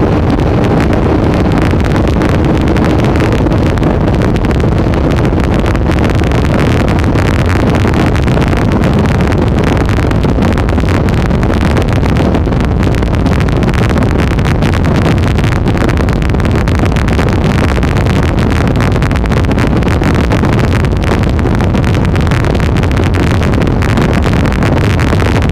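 Twin Mercury outboard motors running at a steady high speed, mixed with heavy wind buffeting the microphone and the rush of spray from the wake.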